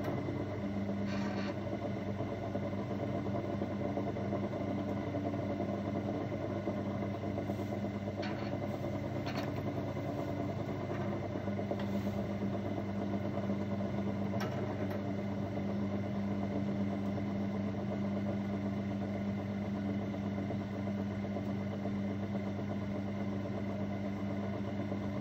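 Electric potter's wheel motor running at a steady speed with a low, even hum while wet porcelain clay is thrown on it. A few faint short clicks sound over the hum.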